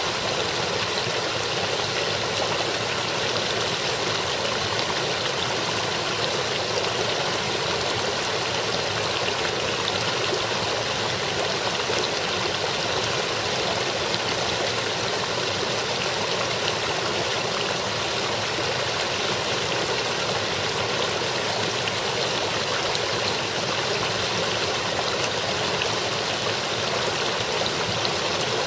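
Shallow, partly frozen brook babbling steadily as it flows over rocks between ice shelves.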